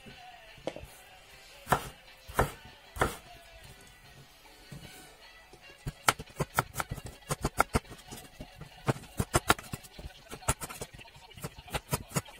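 Kitchen knife chopping a peeled raw potato on a wooden cutting board. There are three separate knocks in the first few seconds, then quick runs of strokes, several a second, as the potato is cut into even slices for thin fry strips.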